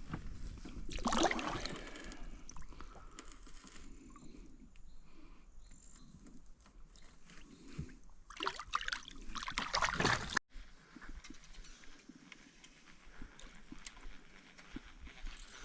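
Water splashing and sloshing in two bursts, a short one about a second in and a longer one from about eight to ten seconds, then a sudden cut to quieter surroundings.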